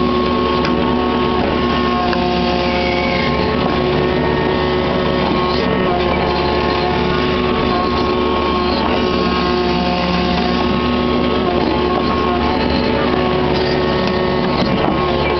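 Kubota KX61-3 mini excavator's diesel engine running steadily under load, heard from the operator's seat, with a hydraulic whine that starts and stops every second or two as the boom and swing are worked.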